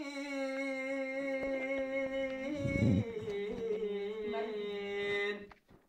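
Unaccompanied male singing of a Turkish Islamic hymn (ilahi): one long held note, a brief low thud, then a higher held note that dies away shortly before the end.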